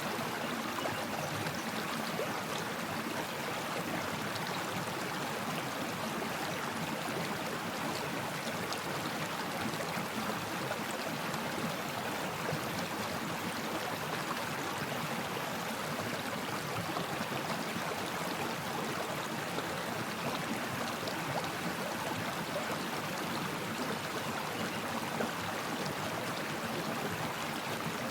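Stream water flowing steadily over rocks, a continuous babbling and trickling rush.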